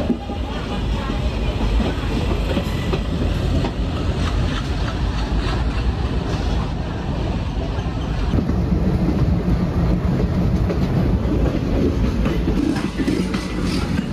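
Passenger train running on the line, heard from on board: wheels clattering over the rail joints above a steady rumble. About eight seconds in, the rumble deepens and the hiss fades.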